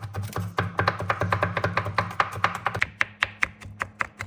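Kitchen knife rapidly chopping garlic cloves on a plastic cutting board, about five or six quick strikes a second, with background music underneath.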